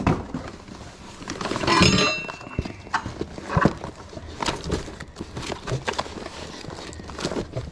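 Items being shifted by hand: a run of knocks, bumps and scrapes, with a louder metallic clank about two seconds in that rings on briefly.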